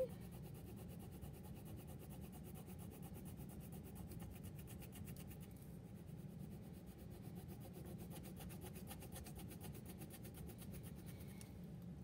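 Wax crayon rubbing back and forth on paper as a drawing is coloured in: a faint, continuous scratching.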